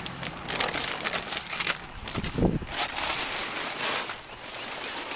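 Footsteps crunching and rustling over the yard, with irregular crackles throughout and a duller thump about two and a half seconds in.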